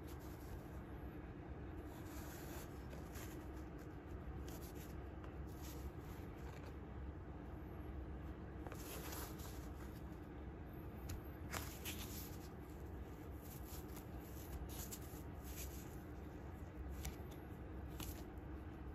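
Faint, irregular rustling and scraping of a foam shoe insole being flexed and rubbed between the fingers, over a low steady hum.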